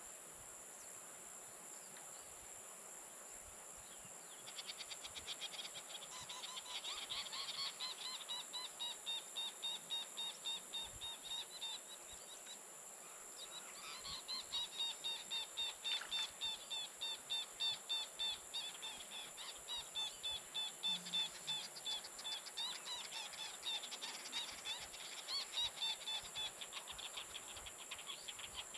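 Birds calling in long rhythmic series, about two calls a second, in two bouts with a short break near the middle, over a steady high chorus of insects.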